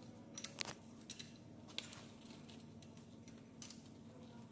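A handful of faint, sharp metallic clicks as the flywheel bolts are fitted and threaded in by hand on the crankshaft, the clearest in the first two seconds, over a steady low hum.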